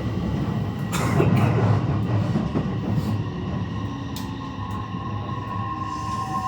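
JR West 321 series electric train with a Toshiba IGBT VVVF inverter running on the rails: a steady rumble with a few sharp rail-joint clicks and a loud rush about a second in. From about five seconds in a high steady whine grows louder. This is the car's abnormal high-pitched inverter sound.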